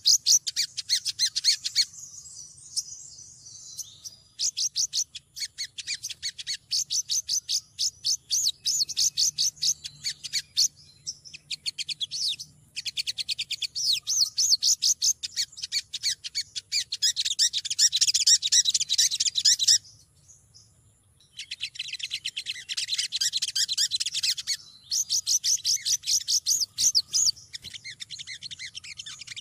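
Female olive-backed sunbird (Cinnyris jugularis) giving fast, high runs of chattering chirps in spells of a few seconds, broken by short pauses. This is a female in full voice calling to males.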